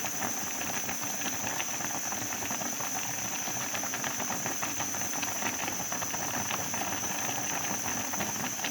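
Pot of rice cooking at a boil, with a steady hiss of steam and dense quick crackling pops from the bubbling rice. A steady high-pitched whine sits beneath it.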